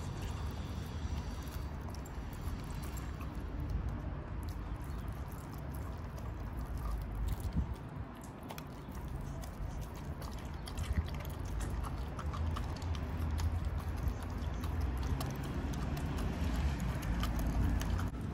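A husky chewing and crunching raw chicken backs, with irregular sharp cracks of bone over a steady low rumble.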